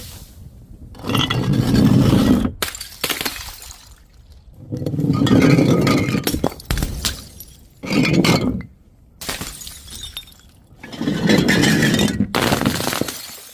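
Glass bottles and jars breaking and crunching in four loud bouts, each about a second or more long, with shards clinking in the quieter gaps between.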